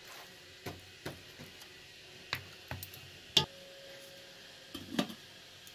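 Metal skimmer ladle knocking and scraping against a large metal cooking pot while stirring greens: a handful of irregular clinks, the loudest about three and a half seconds in, with a short ring after it.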